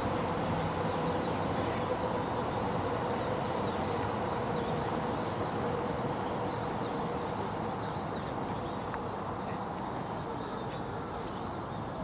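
Small birds chirping, many short high calls over and over, above a steady background rumble with a faint hum that fades out about halfway through.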